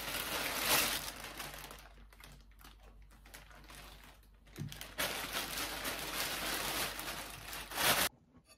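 Clear plastic produce bag of apples crinkling and rustling as it is handled: loud in the first second, quieter with a few light taps in the middle, then rustling again for about three seconds before cutting off.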